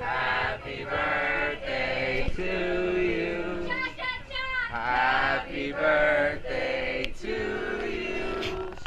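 Several voices singing a song together, in held notes with short breaks between phrases.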